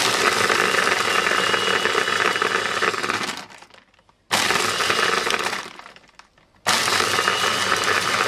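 Small personal blender crushing ice with dragon fruit and yogurt: the motor runs with a rattling, crunching roar and a thin whine. It is run in three bursts, each winding down over under a second; the second burst starts about four seconds in and is short.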